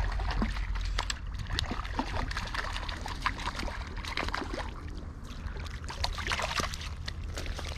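Water sloshing and splashing, with many short sharp splashes and taps over a steady low rumble: a lively hooked trout thrashing at the surface of a river as it is played in.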